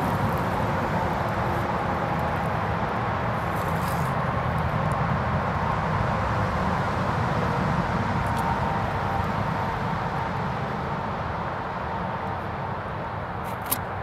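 Steady low outdoor background rumble with a faint steady hum, and a brief click near the end; no bird calls are heard.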